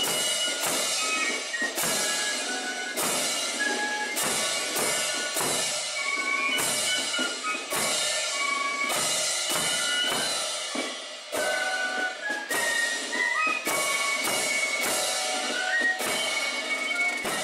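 Marching fife-and-drum band (Spielmannszug) playing a march: several transverse flutes carry the tune in unison over a steady beat of bass drum and cymbals.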